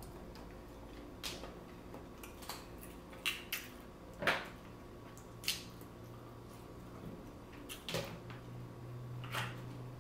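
Sporadic small cracks, clicks and wet squishes of seafood-boil shells being broken and peeled in sauce, about eight separate snaps with the loudest about four seconds in, over a faint steady low hum.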